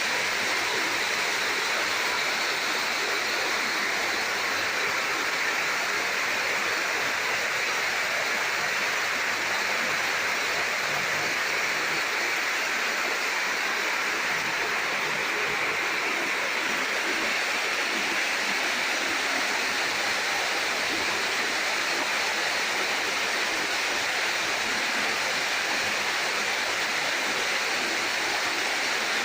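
Rainwater pouring steadily down a small monsoon waterfall, a continuous, even rush of falling water.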